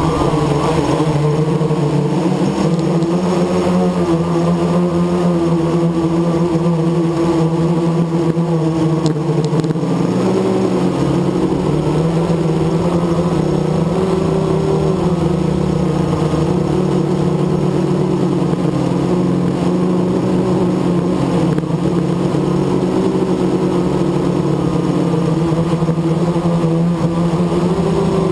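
Blade 350 QX quadcopter's brushless motors and propellers droning steadily, heard close up from the onboard camera. The pitch wavers slightly with throttle changes, most noticeably about ten seconds in and again near the end.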